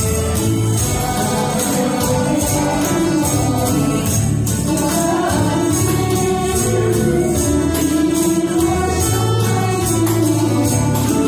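An amplified backing track of a sung pop song, with a woman singing the melody into a microphone. Handheld tambourines and shakers jingle along in time with the beat.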